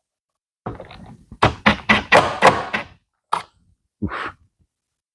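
A quick run of knocks and rattles from tools and hardware being handled, then a single sharp click and a short thud.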